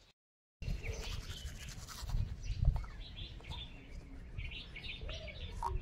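Toothbrush scrubbing teeth, with birds chirping in the background.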